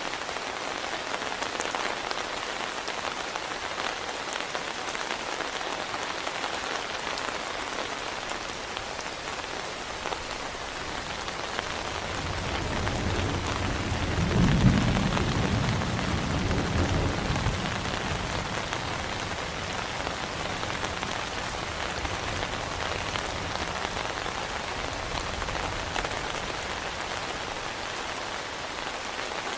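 Heavy rain falling steadily, with one long rumble of thunder that builds about twelve seconds in, peaks near the middle and fades away over several seconds.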